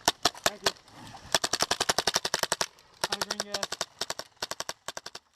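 Airsoft guns firing on full auto: sharp clicking shots, first a slower string, then a fast burst lasting over a second and several shorter bursts after it.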